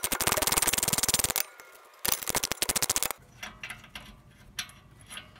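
Ratchet wrench clicking rapidly as it backs out a rear brake caliper bolt on a 2011 Ford Taurus, in two runs with a brief pause between them. Fainter, scattered clicks follow.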